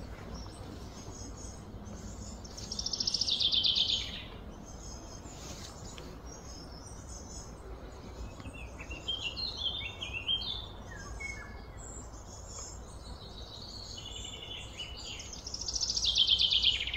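Songbirds singing over a steady low background hum: a fast, falling trill about three seconds in and again near the end, with a run of short falling notes in between.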